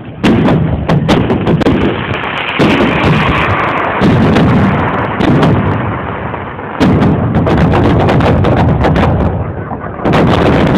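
Fireworks display: aerial shells bursting one after another, with about five big loud bursts and dense crackling between them.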